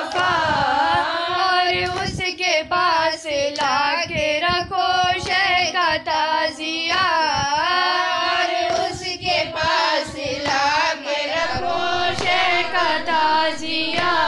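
A woman singing a noha, a Shia lament for Muharram, in long sliding melodic lines over a steady held tone underneath.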